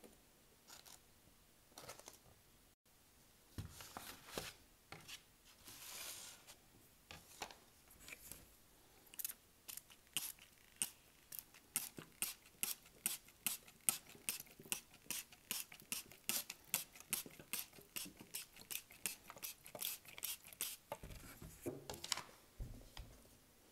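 Hand trigger spray bottle misting soil in a seed tray: a long run of quick short spritzes, about two or three a second, for some twelve seconds, after a few scattered handling and rustling sounds.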